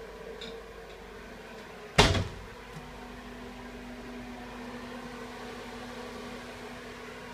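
A single loud knock about two seconds in, then a steady hum starts up and keeps running: a bathroom ceiling exhaust fan running. Another steady, higher hum is present underneath the whole time.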